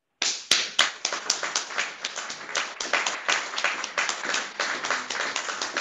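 A small audience applauding, many hands clapping at once in a dense, uneven patter; it starts abruptly a moment in.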